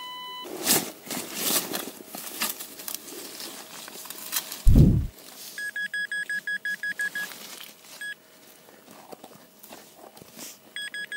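A metal detector's steady tone on a strong target cuts off about half a second in. A hand digger then scrapes and crunches into soil, with one heavy thump about five seconds in. Next the detector beeps in quick, even pulses for about two and a half seconds, and again near the end, marking metal in the freshly dug hole.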